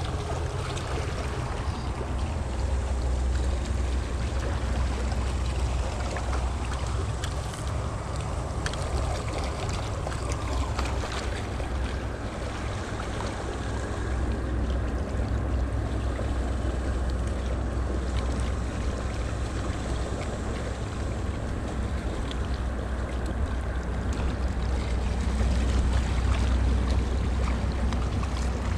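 Steady wind rumble on the camera's microphone over a constant rushing hiss, with a few faint clicks.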